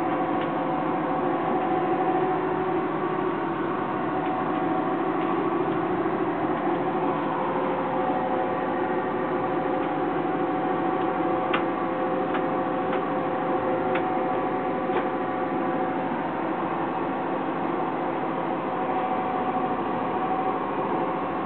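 Steady drone of a scallop boat's engine running underway, heard in a bunk room below deck, with a few faint clicks about halfway through.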